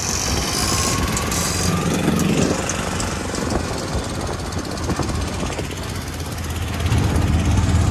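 Auto-rickshaw's small single-cylinder engine putting along while the rickshaw drives, heard from inside the open cab as a fast, rattling chug, getting louder near the end.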